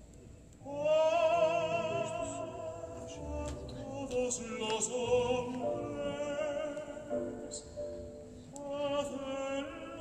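Operatic female voice singing long notes with wide vibrato, played back through a hi-fi system with Trafomatic valve amplifiers and Blumenhofer Classic 1733 loudspeakers. The singing begins about half a second in, after near quiet.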